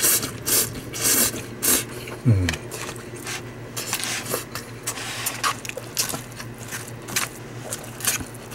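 Chopsticks stirring rice noodles and vegetables in a plastic takeout tray, scraping and clicking against the plastic in short bursts that are busiest in the first two seconds and then grow sparser.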